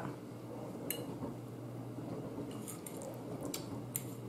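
Quiet chewing and mouth sounds of someone eating, with a few light clicks of a metal fork against a plate.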